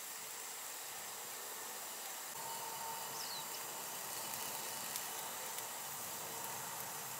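Wood campfire burning under a kettle: a steady hiss with a few faint crackles, a little louder from about two and a half seconds in.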